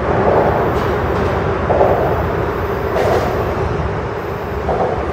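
Freight train led by a BNSF ET44C4 diesel locomotive approaching from a distance, a steady low rumble with no horn.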